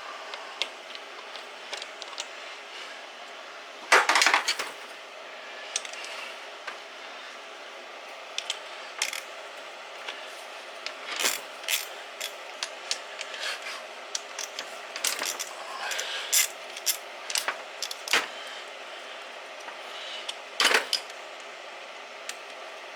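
Hand tools and small metal parts clicking and clinking against a Kawasaki KLT110 engine as the cam chain tensioner is unbolted, with scattered light clicks and a louder knock about four seconds in and again near the end.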